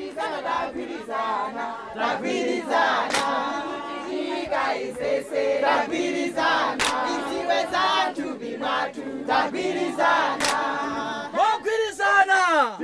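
Performers shouting dialogue in a non-English language, with a large crowd of voices calling back and singing-like calls mixed in, and sharp knocks at intervals. Near the end one voice slides steeply down in pitch.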